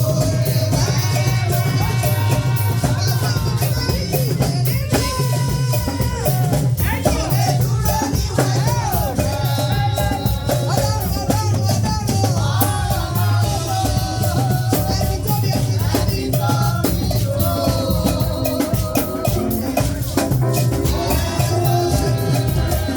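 Lively band music with steady drums and shaken rattles, and a melody line carried over the top.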